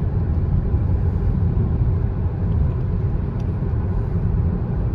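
A car driving, a steady low road rumble.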